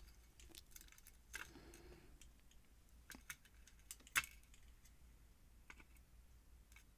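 Faint, sparse clicks and light metallic ticks of small lock parts (pins, springs and spools) being picked out of a lock core with tweezers and set down, a few separate clicks a second or more apart.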